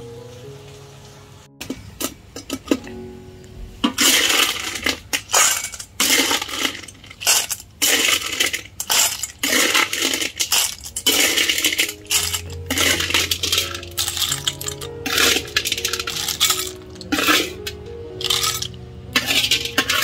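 Cooked snails in their shells clattering against metal as they are scooped with a metal spatula from a steel wok into a metal bowl. The clinking comes in repeated bursts from about four seconds in.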